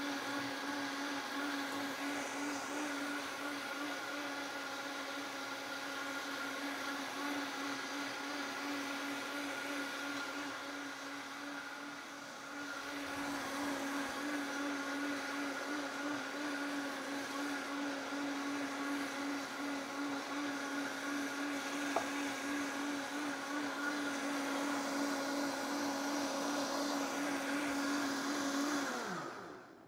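Vitamix blender motor running steadily on high speed (10), liquefying a full jar of grapefruit, strawberry and apple into juice. Near the end the pitch falls as the speed comes down, and the sound stops abruptly.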